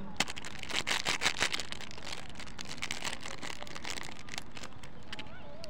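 Plastic candy wrapper being torn open and peeled back by hand: a run of crinkling and crackling, loudest in the first couple of seconds and fading out over the next few, over a steady background hiss.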